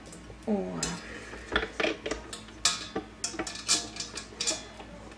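Metal clicks and clinks, irregular and sharp, as a wire balloon whisk attachment is fitted onto a stand mixer and knocks against its stainless steel bowl. A short falling hum comes about half a second in.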